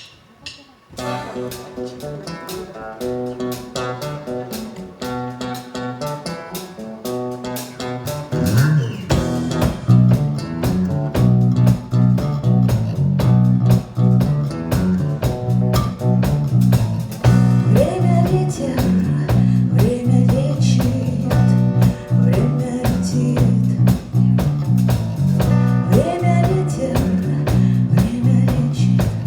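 Live band playing the song's opening: a guitar picks a melody alone, then about eight seconds in bass guitar and drums come in and the full band plays on, louder.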